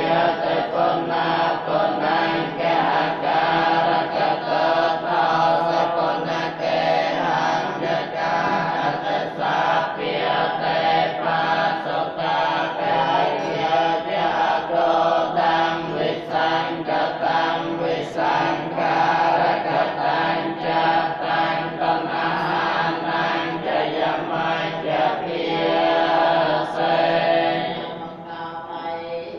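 Buddhist monks chanting together in low, even unison, syllables coming quickly and steadily, with a brief lull near the end.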